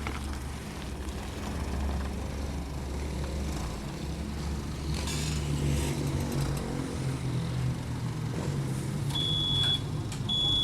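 Forklift engine running under load as it lifts a heavy steel coil, its note rising and getting louder about halfway through. Near the end its reversing alarm gives two high, steady beeps.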